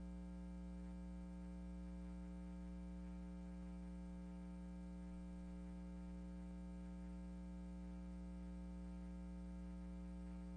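Faint, steady electrical hum with a buzzy stack of overtones and light hiss: mains hum left in the audio track, with no music or speech.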